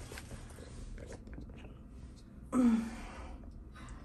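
Faint rustling of clothing and handling noise, then about two and a half seconds in a woman's brief voiced sigh, falling in pitch.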